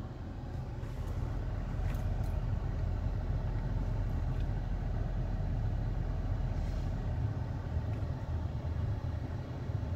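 Car engine running with a steady low rumble, heard from inside the car's cabin.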